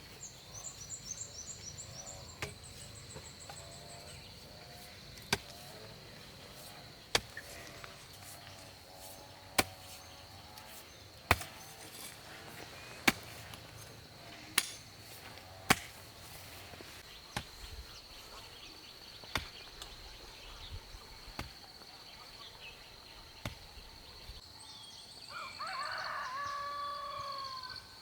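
Sharp single knocks, roughly one every two seconds, over a steady high insect drone with birds chirping; near the end a louder animal call.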